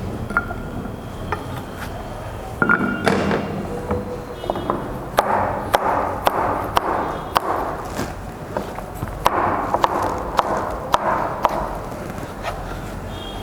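Kitchen knife chopping vegetables on a cutting board. It makes a run of sharp, irregular knocks, starting about two and a half seconds in, with short pauses between the runs.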